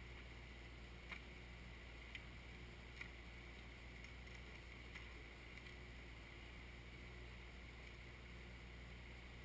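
Faint, steady low drone of a Kioti 3054 compact tractor's engine running some way off while its backhoe works, with a few faint clicks in the first five seconds.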